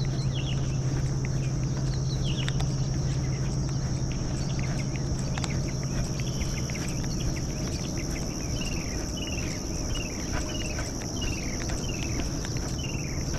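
Outdoor morning ambience: insects keep up a steady high-pitched drone. Birds whistle short down-slurred notes, a few at first, then a regular run of them about two a second in the second half. A steady low hum runs underneath.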